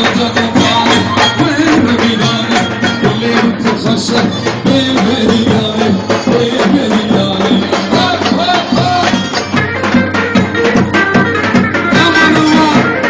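Loud Middle Eastern folk dance music from a band: a steady, busy drum beat under a wavering melody line.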